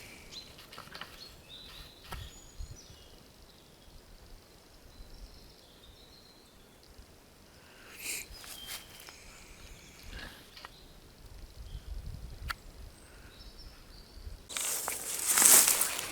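Faint outdoor ambience with a few light clicks and rustles, then a loud rustling, crunching noise for about two seconds near the end.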